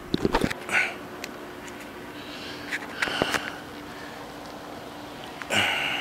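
Clicks and knocks near the start, then short hissing rushes, the loudest about five and a half seconds in, as a small flame is lit to start charcoal in a grill.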